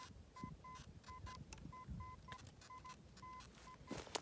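Metal detector giving its target tone: a string of short beeps of one pitch, some longer than others, at irregular intervals as the coil is swept over a clear, strong signal that reads 89 on the display. A louder scraping starts near the end.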